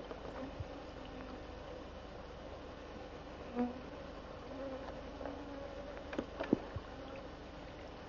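Flying insects buzzing close to the microphone, a thin hum that comes and goes, over a low steady hiss. A few light clicks about six seconds in.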